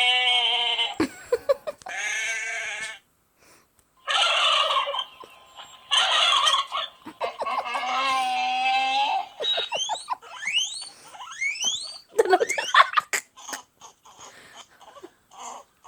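A series of animal calls: several drawn-out calls of about a second each, then a run of quick rising chirps near the end.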